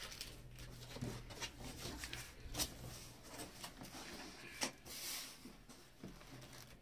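Hands handling a cardboard shipping carton and its polystyrene foam packing: flaps folded back and foam end caps gripped, giving light rustling with scattered sharp knocks, the two sharpest near the middle and about two-thirds in.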